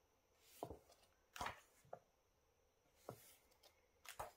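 Paper pages of a softcover workbook being turned one after another: several brief, faint swishes and flaps of paper, a few with a light click as a page lands.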